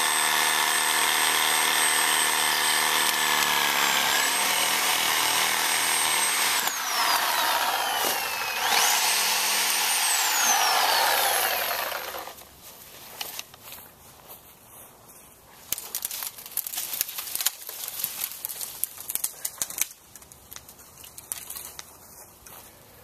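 Corded Bosch reciprocating saw with a pruning blade cutting through arborvitae trunks: the motor runs with a steady high whine, its pitch dips about four seconds in, then slides down and spins back up around seven to nine seconds. It stops about twelve seconds in, leaving quieter scattered clicks and rustles.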